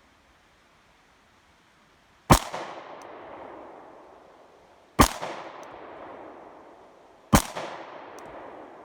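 Three 9mm pistol shots from a Glock 26, about two and a half seconds apart, each trailing off in a long echo.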